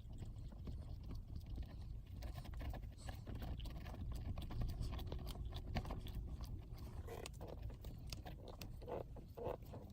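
Shift knob being screwed back onto a manual gear lever by hand: scattered small clicks, scrapes and rubbing, busier near the end, over a low rumble.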